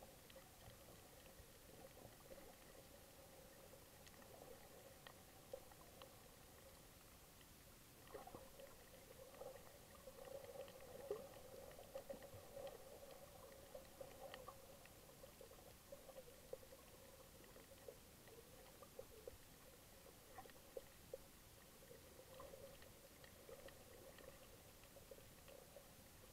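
Faint, muffled underwater sound heard through a camera's waterproof housing: a steady low hum with scattered small clicks and crackles, busier in the middle stretch.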